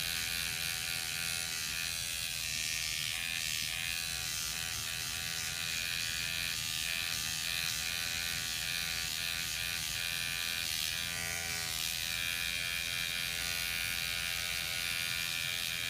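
Rejuvapen electric microneedling pen running with a steady buzz as it is passed over the skin of the face.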